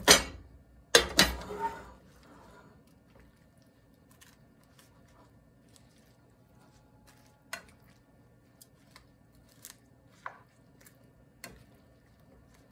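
A glass pot lid set down on a metal pot with a loud clang, followed about a second later by two more knocks. Then metal tongs turn sliced mushrooms and cabbage in a frying pan, with a few faint clicks.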